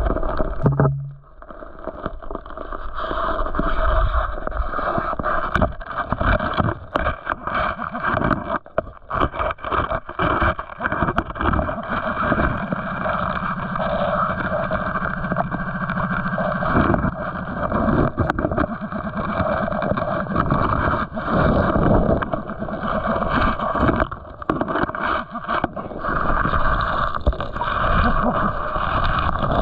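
Creek water sloshing and gurgling close to the microphone, with frequent knocks and scrapes, as of wading and digging in a rocky creek bed.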